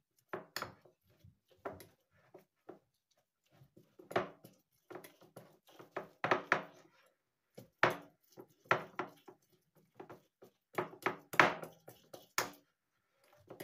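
Bananas being mashed by hand in a dish: irregular knocks, taps and clatters of the utensil against the dish, coming in clusters, with the loudest strike a little past the middle.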